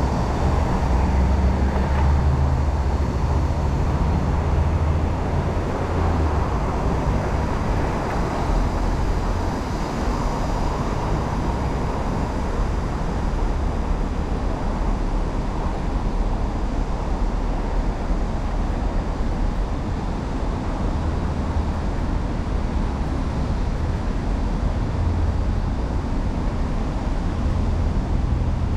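Steady city street traffic noise with a low rumble that is stronger for the first several seconds and again near the end.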